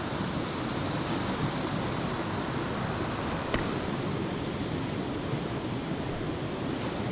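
Steady rushing of a fast-flowing beck, with one short click about three and a half seconds in.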